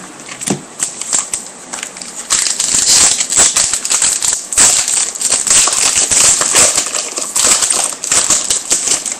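A trading card pack's wrapper being torn open and crinkled by hand: a few scattered crinkles, then dense crackling from about two seconds in.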